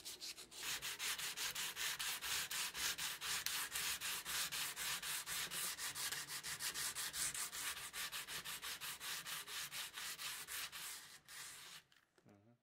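Sandpaper rubbed by hand over the rusty steel of a bayonet, in quick back-and-forth strokes about four or five a second, tailing off near the end.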